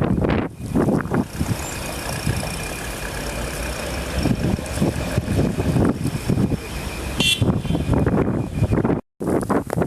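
Blizzard wind buffeting the microphone in gusts over a steady vehicle-engine hum, with a short high squeak about seven seconds in; the sound cuts out for a moment near the end.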